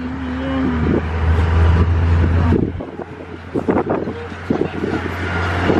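An open-sided tourist road train running, heard from one of its carriages: a low steady drone with knocks and rattles and some wind. The drone drops away about halfway through.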